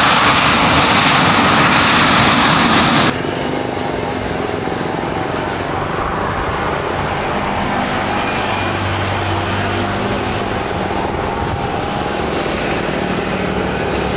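Airbus A350 Rolls-Royce Trent XWB jet engines. For about three seconds comes a loud, hissing jet rush from an A350 on the runway close by, which cuts off abruptly. It is followed by the steadier, lower engine noise of an A350 on final approach.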